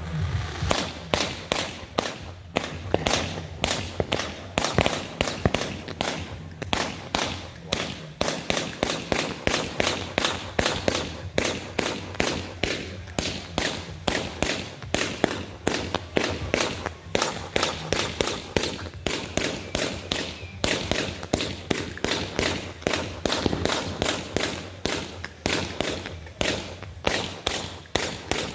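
Consumer multi-shot fireworks cake firing a long, steady string of bangs and pops, about three a second.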